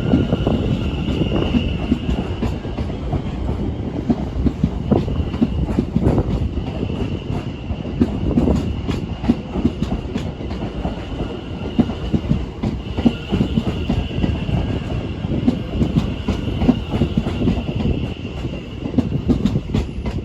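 Train running past, its wheels clattering irregularly over rail joints, with a steady high-pitched squeal from the wheels on the track that swells and fades.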